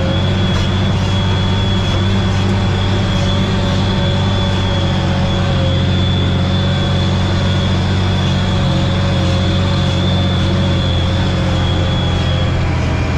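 Tractor engine running steadily under load while harrowing, heard from inside the cab, with a thin high whine over it that fades shortly before the end.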